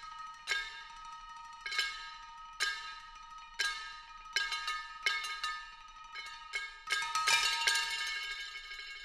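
Percussion ensemble striking small metal percussion: sharp hits with bright, bell-like ringing over two steady ringing tones. The strikes come irregularly, about one a second, then crowd together into a louder cluster near the end, whose ringing fades away.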